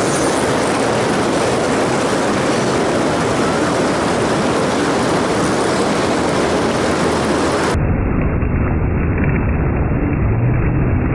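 Fast river water rushing and churning below a low-head dam, a loud steady rush. About eight seconds in it turns muffled and heavier in the lows.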